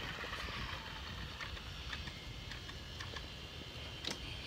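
Toy remote-control car running, its small electric motor whining down in pitch in the first second, with a few light clicks and a low rumble.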